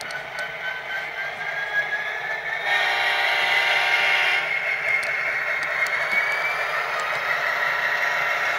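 Diesel locomotive sounds from a Tsunami sound decoder played through a model locomotive's small speaker: engine sound with a whine that climbs slowly in pitch. There is a louder, fuller burst of sound about three seconds in that lasts under two seconds, and a few light clicks.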